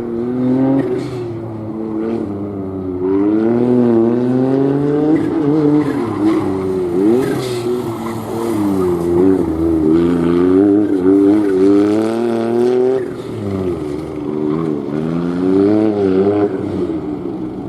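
A gymkhana car's engine revving hard through a tight course, its pitch climbing and dropping again and again as it accelerates and slows between turns.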